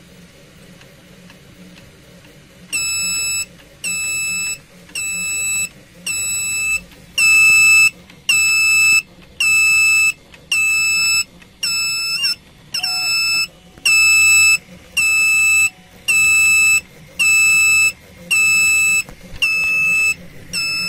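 Piezo buzzer alarm of an Arduino thermal runaway tester, starting about three seconds in and then sounding a high-pitched beep about once a second. This is typical of the tester signalling that a temperature threshold has been reached.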